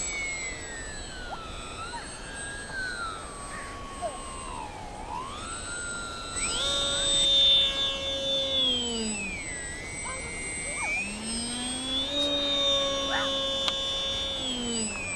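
Polaris RC seaplane's electric motor and propeller whining in flight, the pitch sliding down and back up several times, with a sharp jump in pitch about six seconds in.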